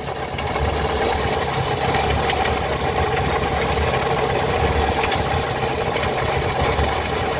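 Mitsubishi Lancer engine idling steadily, with a low rumble and a constant mid-pitched drone over it. The water pump's bearing has failed, so the pump wobbles as it turns.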